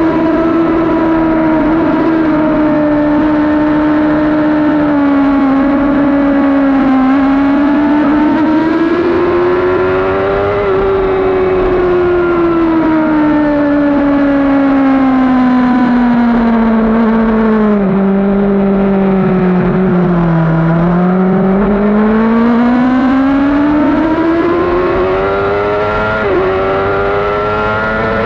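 2012 Yamaha R6's 600 cc inline-four engine running hard at racing revs. Its pitch holds steady, sinks slowly to its lowest about two-thirds of the way through, then climbs steadily again as it accelerates, with a short break in pitch near the end.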